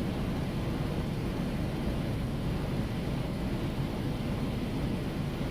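Steady low rumble of a semi truck, heard from inside the cab.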